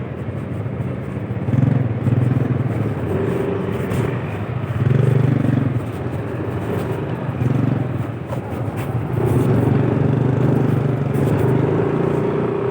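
A motor vehicle's engine runs with a steady low hum that swells and eases every second or two, over road noise.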